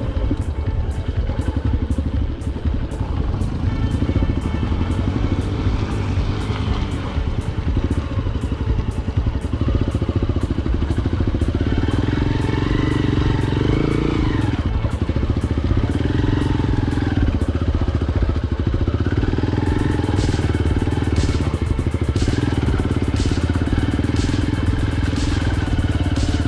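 Motorcycle engine running under way on an off-road ride, its pitch rising and falling with the throttle.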